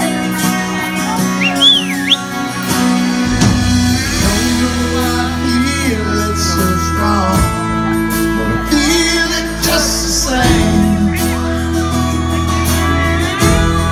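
A country band playing live through a PA: held keyboard chords and guitars, with bass and drums coming in about three seconds in. Several sliding notes rise and fall over the top.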